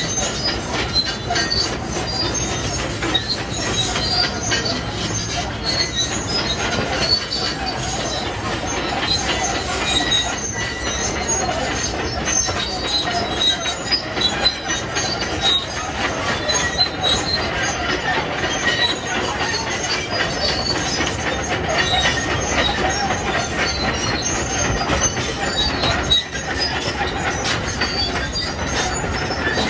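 Heavy construction machinery at work: a steady engine noise mixed with many short, high-pitched metallic squeaks.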